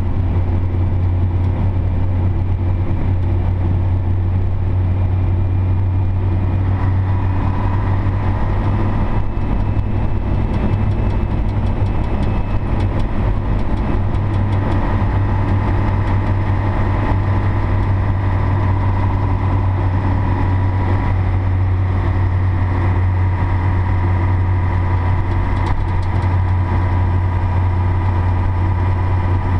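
Scania Tgb 30 (SBA 111) truck's six-cylinder D11 diesel engine running steadily under way, heard inside the cab as a loud, constant low drone. A higher whine joins about seven seconds in.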